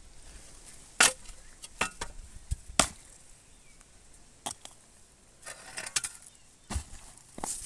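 Irregular sharp knocks, about seven spread over several seconds, with a brief scraping rustle between them.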